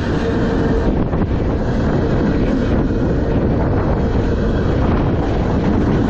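Freight train's empty bulkhead flatcars rolling past at close range: a steady, loud rumble of steel wheels on rail, mixed with a rush of wind.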